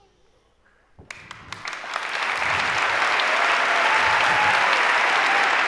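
Audience applauding: a few scattered claps about a second in, quickly swelling into full, steady applause.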